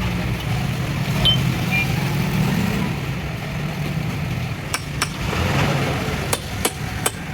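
A steady low engine hum with several sharp knocks in the second half.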